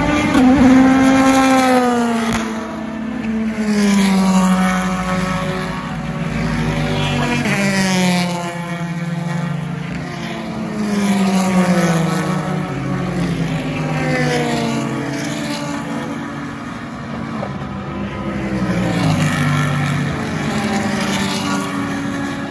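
Sports-prototype and GT race car engines passing one after another, a loud swell every few seconds with each engine note falling in pitch as the car goes by.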